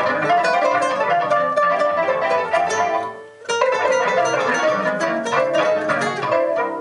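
Live improvised noise music: a dense run of quickly struck, plucked-string-like pitched notes, briefly dropping away a little over three seconds in before resuming.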